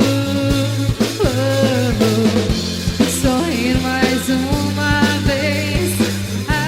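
Live rock band playing: drum kit beats, a sustained bass line and electric guitar, with bending, wavering lead notes.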